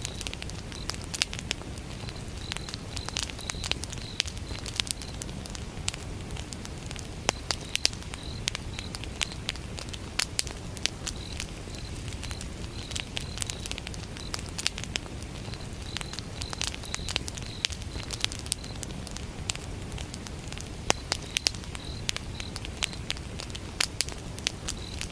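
Wood fire burning, with frequent sharp crackles and pops of burning logs over a low rush of flame. A cricket chirps throughout in rapid high-pitched pulses, pausing now and then.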